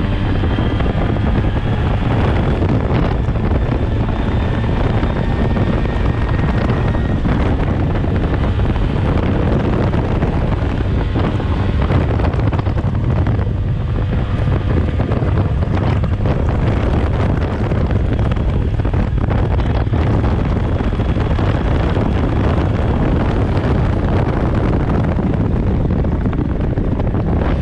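Vespa PX two-stroke scooter engine pulling under steady acceleration at road speed, with heavy wind noise on the microphone.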